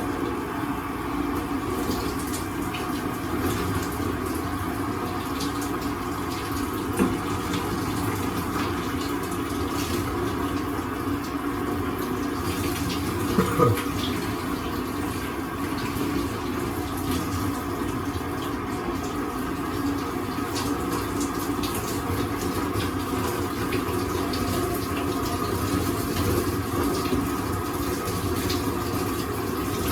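Shower water running steadily in a small room, with a short sound falling in pitch about halfway through.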